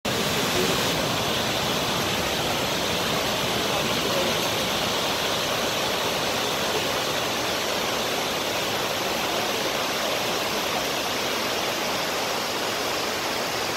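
Waterfall pouring into a rocky pool, with the creek running over the stones below: a steady, even rush of water.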